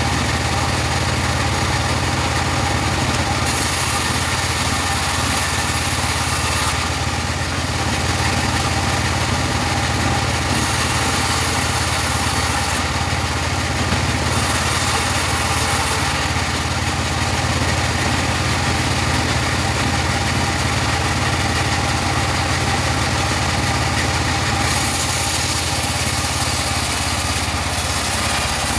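Engine-driven portable bandsaw sawmill running steadily while sawing teak. A steady low engine hum runs throughout, and a high hiss comes and goes four times.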